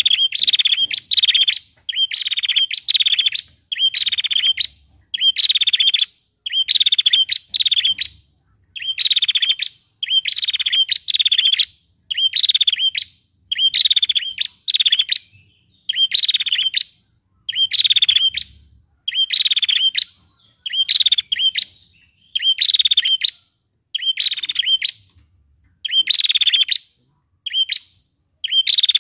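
Caged female prenjak calling over and over: a high, fast rattling trill about half a second long, repeated roughly once a second without let-up.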